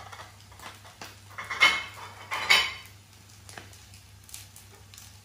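Kitchenware clinking: two sharp, ringing clinks of dishes or utensils about a second apart near the middle, followed by a few lighter taps.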